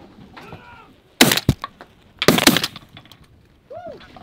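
Two loud shotgun blasts about a second apart, fired at incoming Canada geese. A Canada goose honks once near the end.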